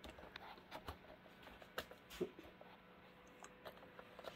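Faint, scattered small clicks and taps of fingers handling an Ethernet cable and plastic parts at the time clock's network jack, with two slightly sharper clicks about two seconds in.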